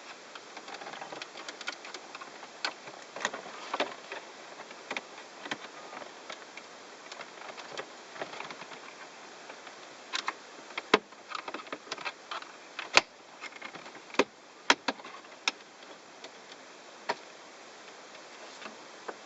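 Irregular sharp plastic clicks and light scraping and rustling from hands working the dashboard trim around the stereo of a 2006 Mazda 3 to pry it loose. The clicks come unevenly, with a cluster of louder snaps in the second half.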